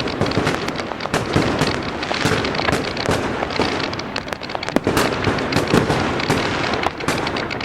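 Fireworks going off in a dense, continuous barrage: many sharp bangs and crackles overlapping, with no break.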